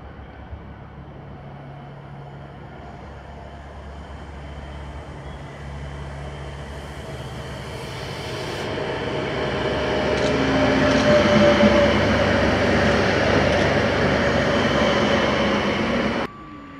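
Stadler Flirt electric multiple unit running in along the platform, its rumble growing louder as it nears, with an electric whine that falls slightly in pitch. The sound cuts off suddenly near the end.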